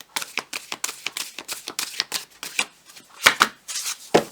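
Tarot cards being shuffled by hand: a rapid run of flicking, riffling card sounds, with a couple of louder taps about three and four seconds in.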